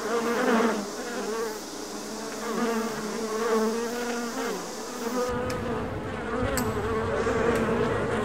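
A swarm of bees buzzing, several wavering drones overlapping. A low rumble joins about five seconds in, with a couple of faint clicks.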